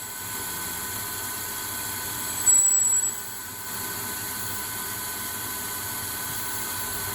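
CNC lathe cutting D2 tool steel with a grooving tool under spray mist coolant: a steady machine whine and hiss, with a brief high-pitched tone and a rise in loudness about two and a half seconds in.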